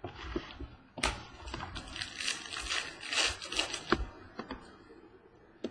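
Trading cards and their plastic wrapping being handled close to the microphone: a burst of rustling and crinkling with a few sharp clicks, starting about a second in and lasting about three seconds.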